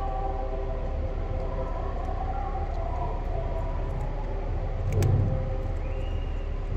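Steady hum of a motor vehicle engine over a low rumble, with louder thumps about five seconds in and near the end.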